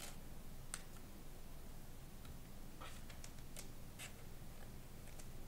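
Faint, scattered ticks and clicks of trading cards being handled, flipped and slid against each other, about seven in all and bunched together a few seconds in.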